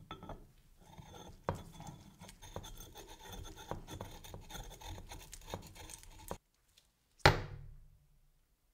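A steel handle rod being screwed into the threaded socket of an antique tap wrench. The metal threads make a scratchy scraping with small clicks and stop abruptly after about six seconds. About a second later comes a single sharp metallic clank that rings briefly.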